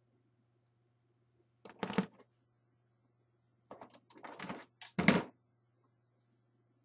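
Plastic action figures clattering and knocking as they are handled and set down: one short burst about two seconds in, then a longer run of knocks and scrapes from about four to five seconds in.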